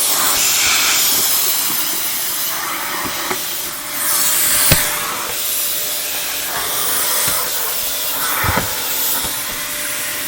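Vacuum cleaner running through a hose attachment tool: a steady motor whine with loud rushing air. There is one sharp knock about halfway through and a couple of short thumps near the end as the tool is worked against something.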